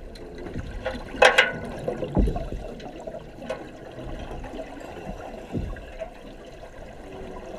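Water bubbling and gurgling as heard underwater, with a sharp rush of bubbles about a second in and a few dull low thumps.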